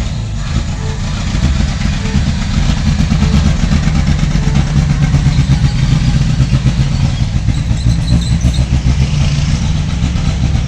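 Toyota Kijang's petrol engine running with a fast pulsing beat, a little louder from about two seconds in.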